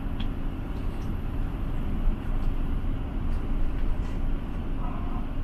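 Steady low engine and road rumble heard inside a moving bus.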